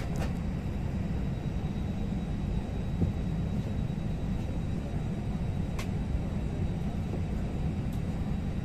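Steady low rumble inside the cabin of an Airbus airliner standing at the gate, with a couple of faint clicks.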